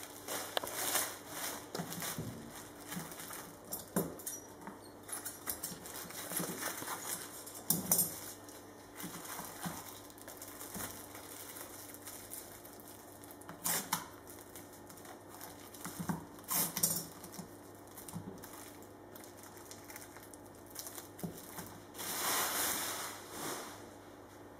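Thin plastic release film crinkling and rustling as it is handled and pressed around a carbon fibre part, in irregular bursts with small clicks, and a longer rustle near the end.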